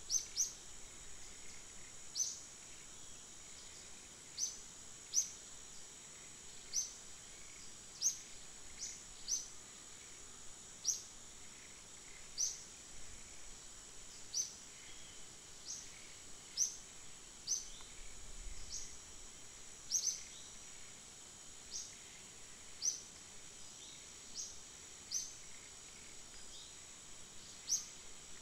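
A steady high-pitched insect drone, with short descending bird chirps repeating irregularly every one to two seconds; the chirps are the loudest sound.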